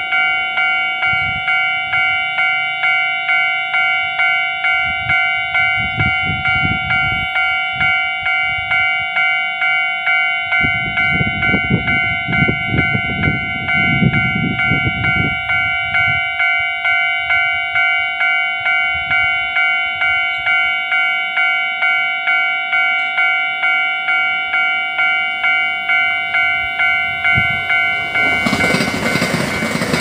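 Level crossing warning bell ringing on and on in a rapid, even ding, about one and a half strikes a second. A low rumble comes and goes in the middle. Near the end the rushing noise of a Puyuma Express tilting electric train passing the crossing rises over the bell.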